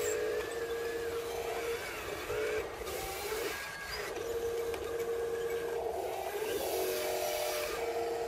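Whine of toy RC construction vehicles' small electric motors and gearboxes as a wheel loader and a tracked dump truck drive through dirt. The whine stops about two seconds in, comes back in short spurts, then runs steadily again from about four seconds in.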